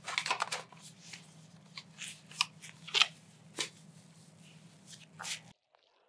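Handling noise of a Hushme Classic voice mask being put on over the mouth: irregular rustling, scraping and clicking, with a faint steady low hum underneath. It all cuts off suddenly near the end.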